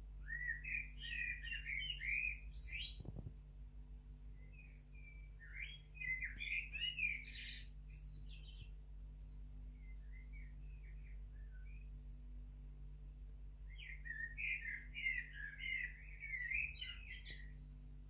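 Male common blackbird singing: three warbled phrases, each a few seconds long, with higher, thinner notes mixed in and pauses of a few seconds between them.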